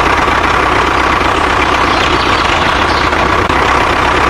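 A vehicle engine running steadily at idle with an even rumble, from a toy construction vehicle or an engine sound effect.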